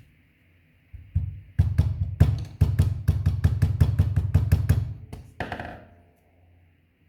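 A rapid run of sharp taps, about four a second, as the hinge barrels of a Zippo lighter are worked tight. A short metallic clack with a ring follows near the end.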